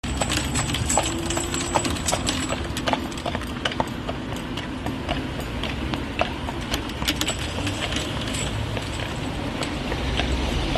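A carriage horse's hooves clip-clopping on an asphalt street, a quick run of sharp irregular strikes over a steady low rumble.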